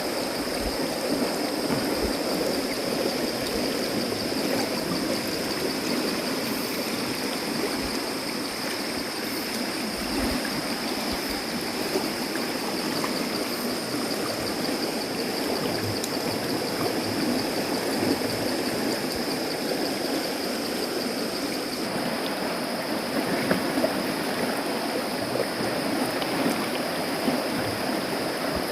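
River water rushing and gurgling steadily, with a steady high-pitched whine running through it.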